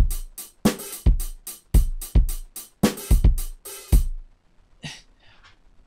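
Programmed rock-and-metal drum groove from the Drum Monkey plugin playing back on a sampled drum kit: kick drum, snare and cymbal hits in a steady mid-tempo beat that stops about four seconds in.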